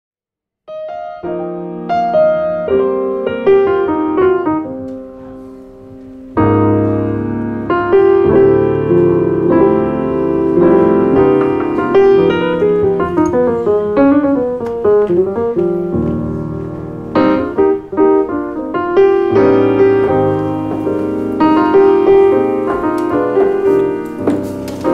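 Piano music. It starts about a second in, thins briefly, then grows fuller with low notes from about six seconds in.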